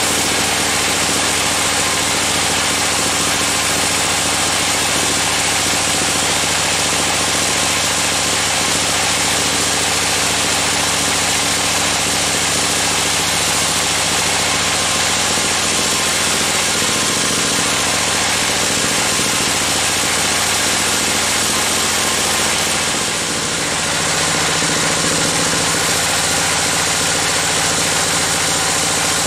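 Band sawmill running steadily, its blade sawing lengthwise through a large damar (Agathis) timber, with the drive's steady hum under the hiss of the cut. The level eases briefly a little before three-quarters of the way through, then picks up again.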